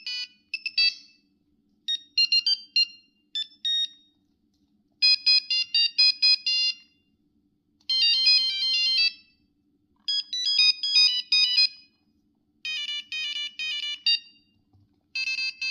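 Nokia 5110 monophonic ringtones: short tunes of quick, high beeping notes, played phrase after phrase with pauses of about a second between them.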